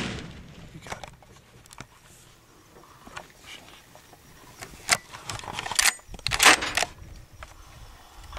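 The echo of a rifle shot fading away at the start, then scattered clicks and short rustling bursts, the loudest about five and six and a half seconds in.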